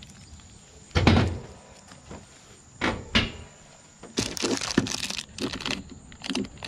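Handling and rummaging through plumbing parts: a heavy thump about a second in, two sharp clicks around three seconds, then a stretch of rustling and clattering as small brass fittings are picked out.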